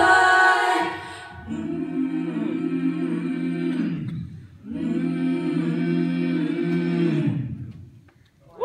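Middle school a cappella choir singing without accompaniment. A moving sung line fades about a second in, then the choir holds two long chords of about three seconds each with a short break between them, closing the song before a brief silence.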